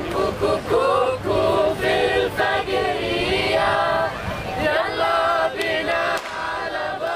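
A group of mixed male and female voices singing together without instruments, in short phrases with held notes.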